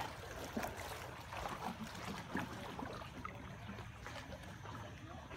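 Water lapping and trickling against the hull of a small wooden rowboat as it is paddled, with scattered small splashes and knocks over a low steady rumble.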